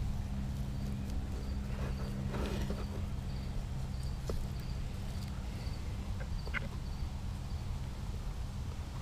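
An insect chirping about twice a second over a low steady hum, with a few faint clicks and rustles.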